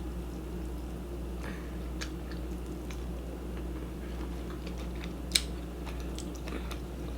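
Close-miked chewing of shrimp: scattered soft wet mouth clicks, with one sharper click about five seconds in, over a steady low hum.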